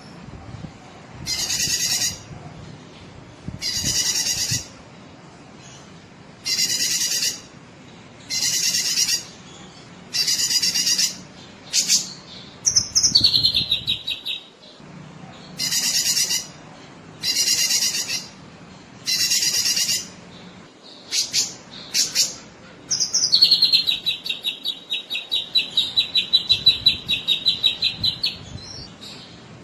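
Cucak kinoi singing: harsh, buzzy calls about a second long, repeated every one to two seconds. They are broken by a short rapid trill near the middle and a long fast trill of many quick notes in the last third.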